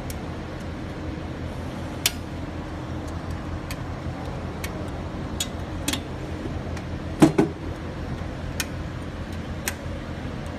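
Scattered clicks and knocks from an LED display cabinet's back cover and latches being handled and closed by hand, the loudest a quick double knock about seven seconds in, over a steady low hum.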